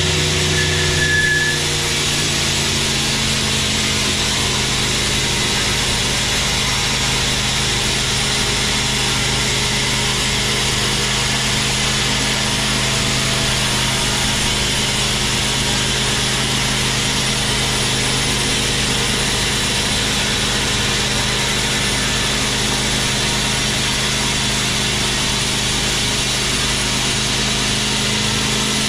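Large sawmill band saw ripping a long teak log lengthwise: a steady machine hum with the continuous hiss of the blade cutting through the wood. The hum's pitch shifts slightly about two seconds in.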